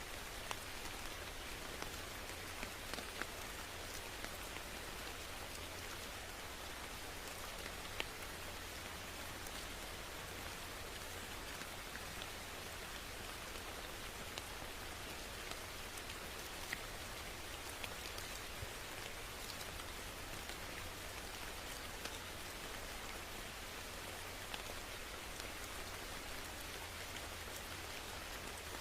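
Steady rain falling, an even hiss with scattered sharp drop ticks against a low rumble.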